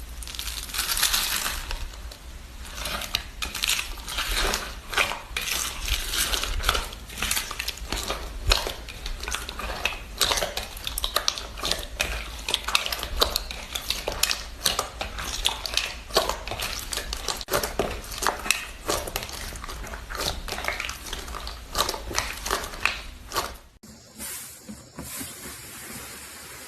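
Slime being squeezed and played with by hand: a dense, continuous run of clicks and pops that quiets suddenly near the end.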